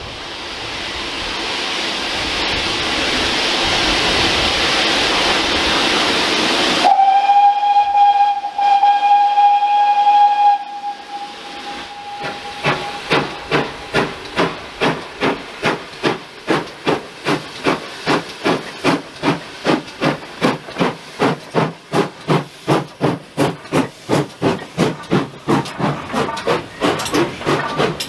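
Steam train passing close by: a rising hiss of steam, then about seven seconds in a single steady steam-whistle blast of some three and a half seconds, followed by a rapid regular beat of about three strokes a second as the locomotive and its coaches go by.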